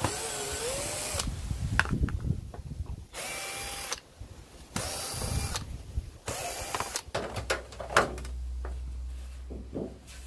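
Cordless drill-driver whirring in four short runs, backing screws out of an LCD TV's plastic rear cover. A few knocks and clicks follow near the end as the loosened cover is handled.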